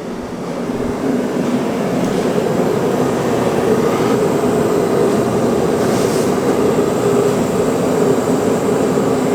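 Steady burner noise from heating the center section of a Super Duty Dana 60 axle toward about 400 degrees before welding. It swells over the first second, then holds level.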